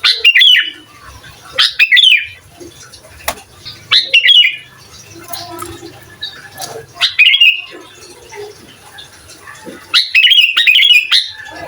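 Sooty-headed bulbul (kutilang) singing loud, short chattering phrases of quick notes, five phrases a few seconds apart, the last one longest.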